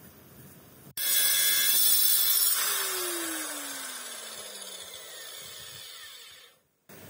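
A power tool's electric motor starts abruptly at full speed, then is switched off and winds down, its pitch falling and its sound fading over several seconds before it cuts off near the end.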